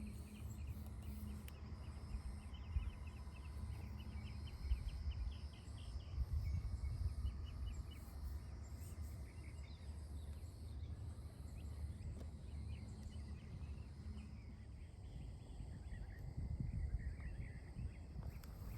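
Outdoor ambience: a steady low rumble of wind and background noise, with a rapid high chirping trill from a small creature through the first half, and a few faint scattered chirps after it.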